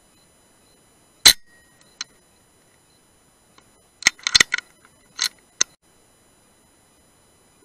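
A single shot from a moderated Brocock Sniper HR .177 PCP air rifle about a second in, a sharp crack with a brief ring after it. A cluster of sharp clicks and knocks follows about three seconds later.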